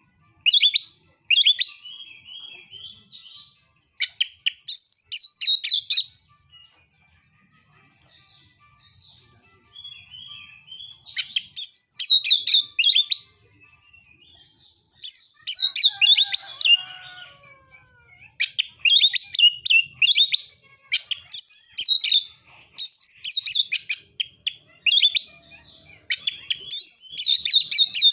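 Oriental magpie-robin (kacer) singing in its aggressive 'narung' fighting mode: loud bursts of rapid, high, repeated notes every couple of seconds, with softer warbling between.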